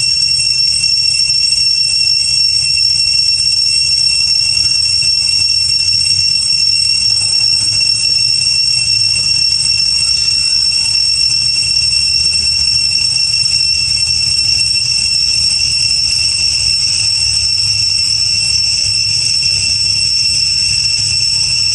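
A steady, loud, high-pitched buzzing drone that holds one pitch throughout, with a low rumble underneath.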